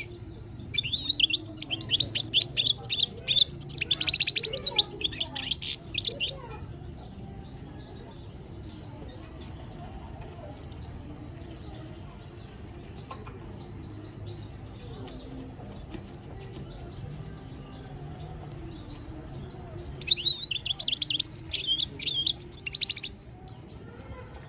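European goldfinch singing: a rapid twittering, warbling phrase lasting about five seconds, then a pause with only a low background hum, and a second shorter burst of song about twenty seconds in.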